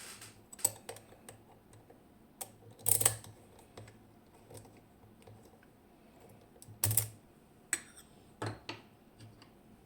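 Lockpicking tools and a TESA T60 lock cylinder being handled: scattered light metal clicks and knocks, the loudest about three and seven seconds in, as the tensioner and pick are set up in the lock.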